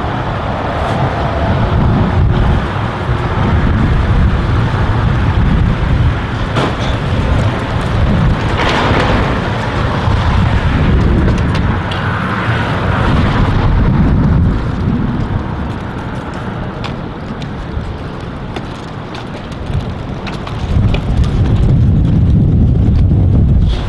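Wind buffeting the camera microphone in a heavy, fluctuating low rumble, with road traffic passing; a vehicle swells up and fades about a third of the way in.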